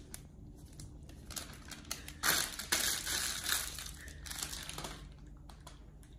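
Plastic bag of chocolate chips crinkling as it is shaken and squeezed empty over a bowl of cookie dough, with the chips falling in. The crinkling is loudest from about two seconds in until about five seconds in, then dies down to a few light crackles.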